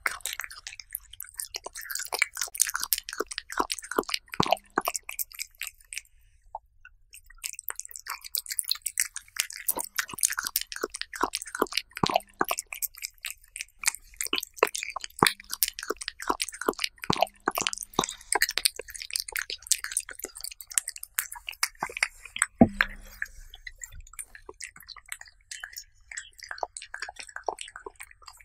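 A cat chewing raw beef slices, close-miked: a fast, uneven run of clicks and smacks, with a short pause after about six seconds and one louder knock about three quarters of the way through.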